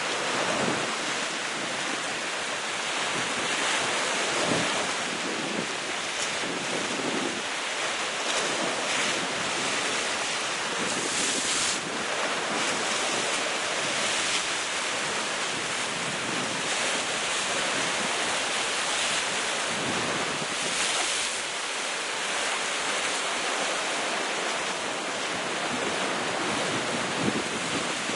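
Sea waves breaking against cliff rocks, a continuous rushing wash that swells and ebbs, with wind buffeting the microphone.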